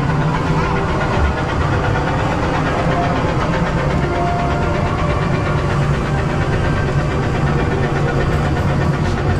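Small engine of a ride-on tractor vehicle running steadily at a low, even pace while it drives along its track.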